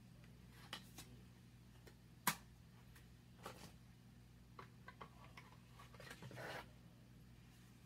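Faint handling noise from an eyeshadow palette and its printed cardboard packaging: scattered light clicks and taps, the sharpest about two seconds in, and a short rustle about six seconds in, over a low steady hum.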